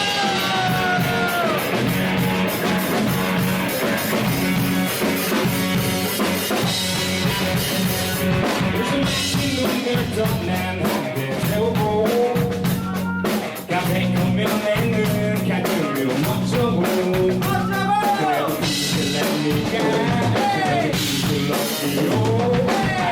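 Live rock band playing: drum kit and guitar, with a voice or melodic line bending in pitch over them.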